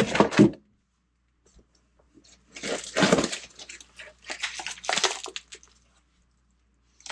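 Plastic wrap on frozen chicken-breast packs crinkling and rustling as they are handled and lifted out of a cardboard box, in two bursts, about two and a half and four seconds in.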